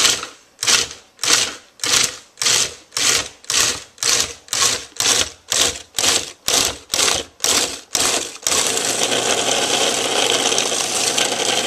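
Food processor pulsing, its blade chopping frozen raspberries with cold heavy cream and sugar: short bursts about two a second, then about eight seconds in it switches to running continuously.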